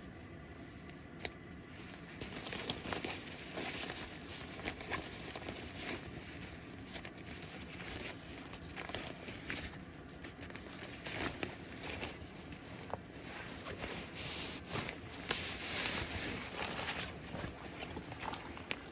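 Irregular rustling and crinkling with scattered light clicks and knocks of things being handled, one sharp click about a second in and a louder stretch of rustling near the end.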